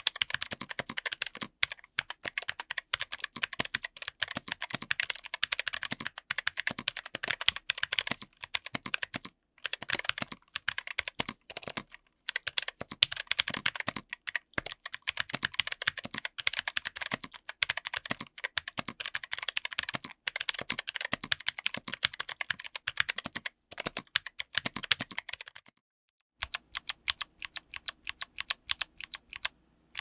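Fast typing on a keyboard with Chosfox x Kailh Arctic Fox clicky switches and MT3 keycaps, on an FR4 plate in an aluminum case: a dense patter of sharp clicks. Near the end the typing stops briefly, then a single key is pressed over and over at an even pace.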